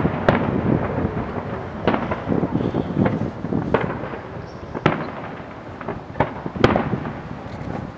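Aerial firework shells bursting overhead: about seven sharp bangs spread irregularly over the eight seconds, with rumbling echoes between them.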